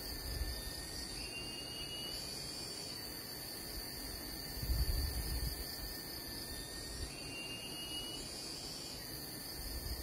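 Steady high-pitched buzzing of insects in forest, with a faint short rising whistle twice and a low rumble about five seconds in.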